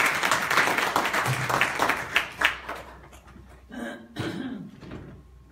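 Audience applauding, the clapping dying away about three seconds in, followed by a short muffled sound about four seconds in.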